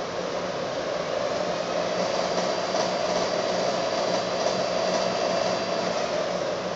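Hobart Legacy 20-quart commercial stand mixer running steadily, its motor and gear drive turning the mixing attachment in the bowl. It gets a little louder about a second in and eases off slightly near the end.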